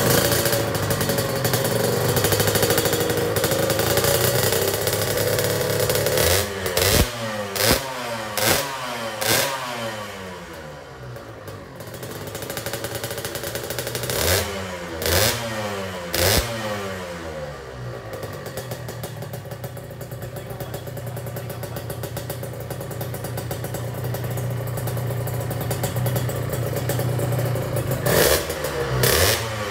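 Kawasaki Ninja 150 SS two-stroke single-cylinder engine running through a freshly fitted TOSH TEC aftermarket exhaust. It idles steadily and is blipped in quick throttle stabs, about five in a row near a quarter of the way in, three more near the middle and two near the end, each time dropping back to idle with a falling note. The exhaust has a dry sound.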